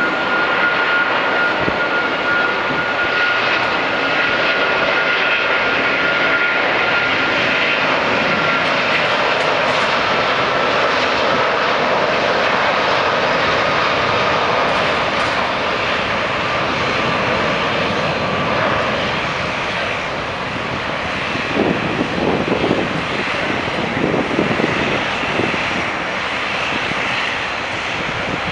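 Airbus A330-200's Rolls-Royce Trent 700 turbofans at takeoff power during the takeoff roll: a steady loud jet roar, with a high whine over it for the first several seconds, turning rough and uneven in the last few seconds as the airliner lifts off.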